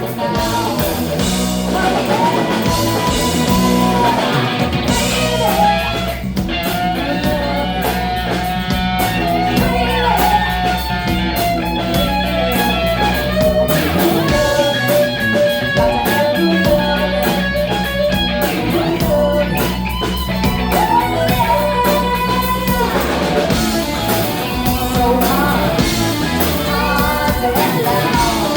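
Live rock band playing an instrumental passage, with electric guitar leading over bass and drums.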